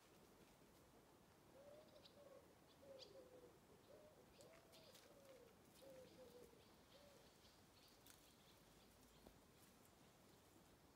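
Faint pigeon cooing: a run of about ten soft, low coos that starts about a second and a half in and stops around seven seconds in, with a few faint high bird chirps.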